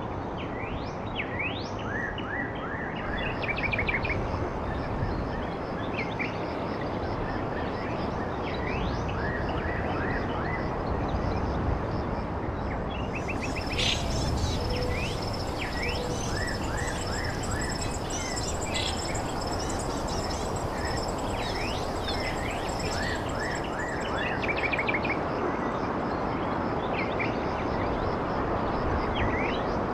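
Small birds chirping and calling over and over, quick short notes, over a steady low background hiss. A thin steady high tone joins in about halfway through and fades near the end.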